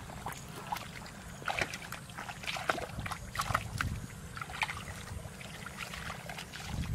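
Small, irregular splashes and squelches of bare feet and hands moving through shallow muddy water, over a steady low rumble.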